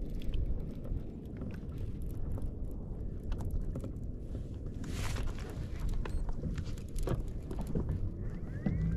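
Low wind rumble on the microphone with scattered light knocks and clicks, and a brief rush of noise about five seconds in.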